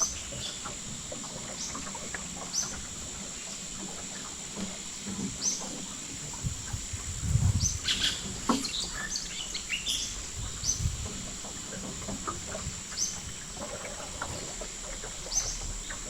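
Birds giving short, repeated chirps every second or two over a steady high-pitched insect drone. A few louder knocks and rustles come about halfway through.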